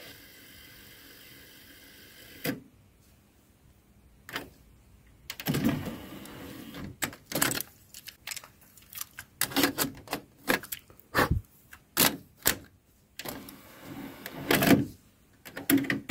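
A faint steady hum that ends in a click, then after a pause a run of irregular mechanical clicks and clunks, a few to the second.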